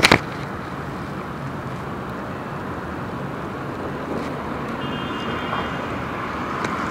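Steady outdoor background noise, an even rush with no distinct events, with a short knock right at the start and a faint thin high tone about five seconds in.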